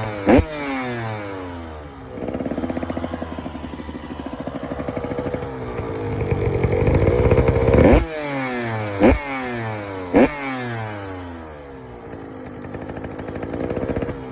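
KTM 85cc two-stroke dirt bike exhaust revving. The engine pitch repeatedly falls off after quick throttle blips. A stretch of sustained high revs grows louder up to about 8 s in, then the bike goes back to more blips and falling revs.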